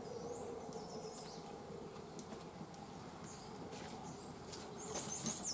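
Small birds chirping in short high sweeps, more often and louder near the end, over the light crackle and scattered pops of a wood fire burning and a faint steady buzz.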